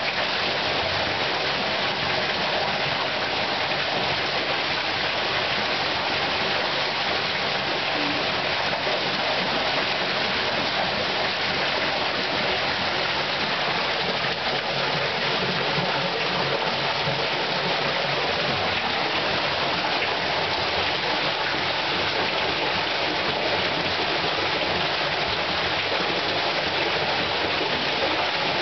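A steady, even rushing noise with no breaks.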